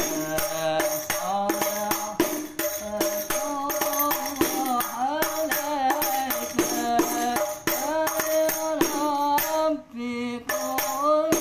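Rebana frame drum struck by hand in a quick, steady pattern: the lanangan part of a hadroh rhythm, with a man singing over it. The drumming breaks off briefly near the end, then resumes.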